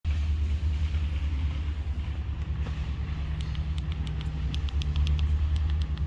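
Steady low rumble of an idling car engine, with a quick run of light clicks in the second half.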